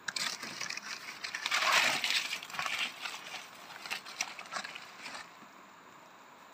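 Leaves and undergrowth rustling and crackling close to the microphone, loudest about two seconds in and stopping about five seconds in.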